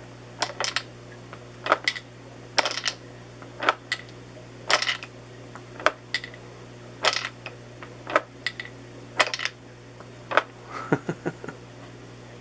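Marbles clicking and clattering through a homemade gumball machine, a cluster of sharp clicks about once a second.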